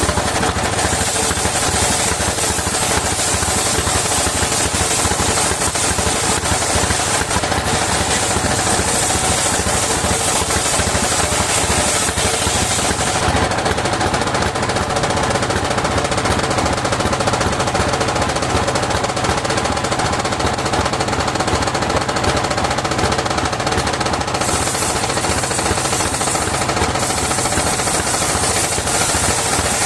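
Engine of a circular-saw wood-cutting mill running steadily with a rapid chugging beat. Partway through, the high hiss in the sound fades for about ten seconds, then comes back.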